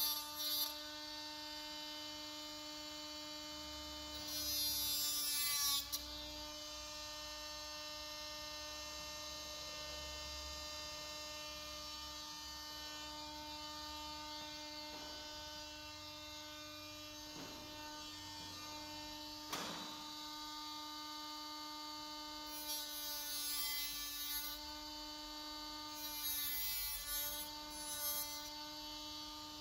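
Cordless orbital sander running with a steady motor whine while it sands a plastic radiator grille. The sound gets louder and scratchier about four seconds in and twice near the end, as the pad is pressed onto the plastic, with one sharp click in the middle.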